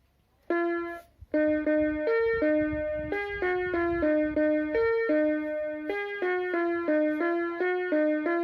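Small electronic keyboard playing a melody of single notes, about two to three a second, in a bright, buzzy synthesized tone; it starts about half a second in.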